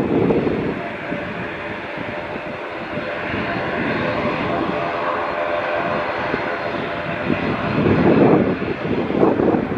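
Airliner engines running nearby: a steady rushing noise with several steady whining tones. Near the end, gusty rumbling from wind on the microphone.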